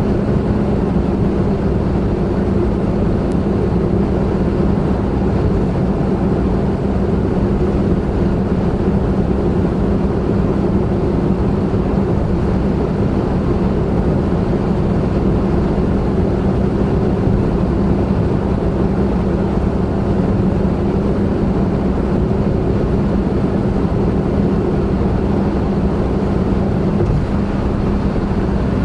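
Honda N-BOX Custom kei car at a steady expressway cruise: its 660 cc turbocharged three-cylinder engine holds one even hum under constant tyre and road noise.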